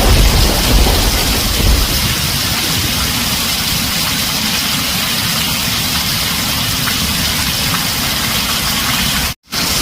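Heavy rain drumming steadily on a tin roof, with a low thunder rumble fading away over the first two seconds. Near the end the sound cuts out completely for a split second, then resumes.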